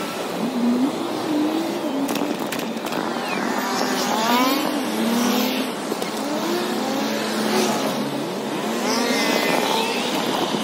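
City street traffic played back sped up: cars passing, with a constant wash of tyre and engine noise and quick engine tones gliding up and down.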